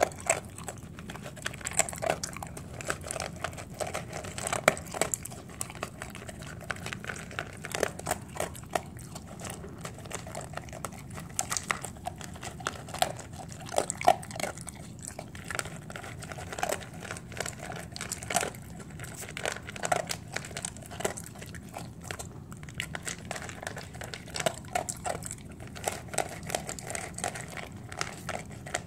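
Dog eating dry kibble from a stainless steel bowl: irregular crunching bites and clicks, many a second, going on without a break.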